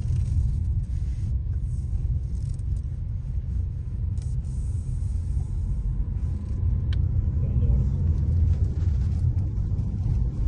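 Steady low rumble inside the cabin of a Chery Tiggo 7 Pro with its 1.6 turbo petrol engine running, with a single sharp click about seven seconds in.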